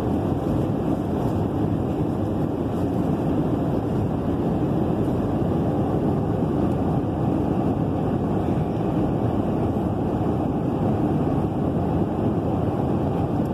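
Airliner cabin noise heard from a passenger seat: a steady, even rumble of engines and airflow with no breaks.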